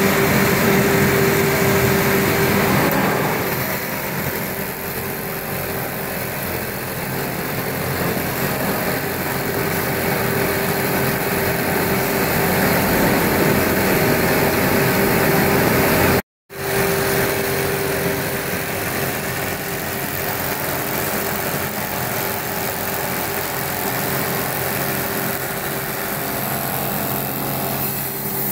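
Felt-hat finishing machines running: a steady mechanical hum with a constant tone through it, a little louder for the first few seconds. It cuts out completely for a moment about midway.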